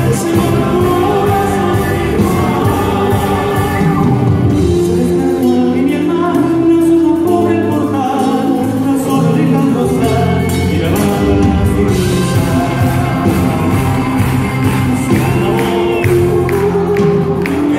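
A live pop-rock band playing a song with a lead singer: electric guitars, bass, drums and keyboards. The deep bass drops away for a few seconds near the middle, then comes back in.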